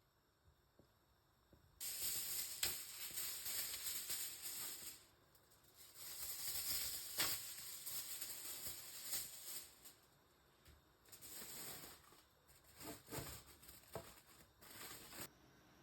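Cooking noise from food in a pan, a rough hiss that comes in bursts: a long stretch, a second long stretch, then several short bursts that stop and start.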